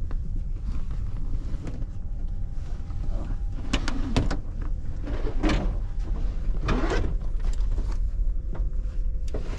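Steady low rumble of a train carriage interior, with a few knocks and scrapes of suitcases being shifted and set down on the floor, about four, five and a half and seven seconds in.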